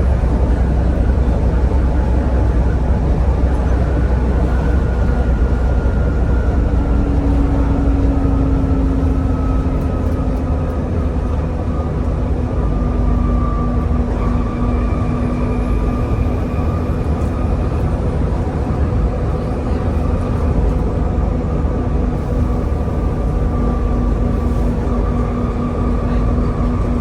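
Volvo B7TL double-decker bus with ZF gearbox running at a steady cruise, heard on board: a heavy engine rumble and road noise with a high drivetrain whine, the 'Hoover' whine these buses are known for. The whine eases slightly lower in pitch about a third of the way in and then holds steady.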